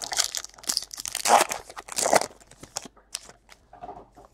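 Foil wrapper of a Panini Chronicles baseball-card pack being torn open by hand and crinkled, a run of irregular rips and rustles that thin out after about three seconds.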